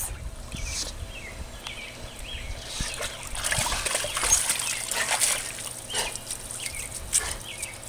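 Pool water splashing and streaming as a wet bulldog climbs out up the pool steps, loudest a few seconds in. A few short, high bird chirps sound over it.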